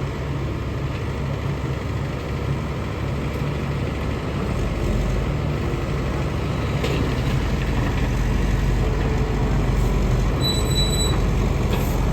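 Diesel engine of an XCMG XE85DA excavator running steadily, with a brief high-pitched tone near the end.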